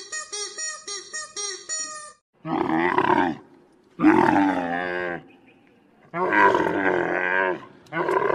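Animal calls: a quick run of short, high chirps for about two seconds, then three loud, long wavering calls, with a fourth starting near the end.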